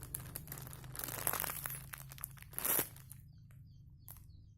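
Crinkling and rustling of a homemade squishy being handled and squeezed, loudest in the first three seconds, then fading, with a short click near the end.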